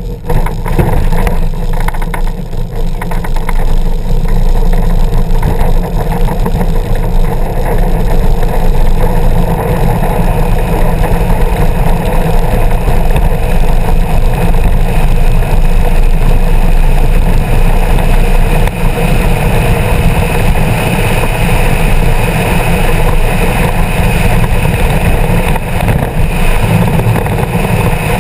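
Road and tyre rumble with chassis rattle from an engineless soapbox racer (bob-car) coasting downhill at speed, heard through a camera mounted on the cart. It grows louder over the first few seconds as the cart gathers speed, then runs steadily.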